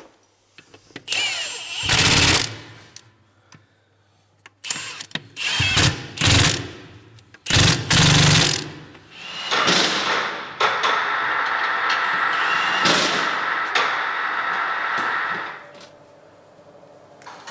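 Workshop sounds: several loud knocks and clatters, then a machine runs steadily with a held whine for about five seconds before stopping.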